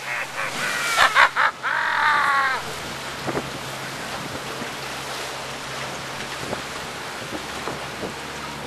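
Outboard motor running steadily as the skiff moves along the net, with wind and water rushing past the hull. A few short, high, arching calls or voices in the first couple of seconds.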